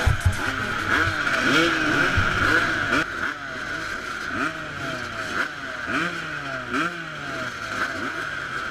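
A row of 250cc two-stroke motocross bikes, the nearest a 1989 Honda CR250, revving on the start line before the gate drops, throttles blipped up and down over and over. It gets a little quieter after about three seconds.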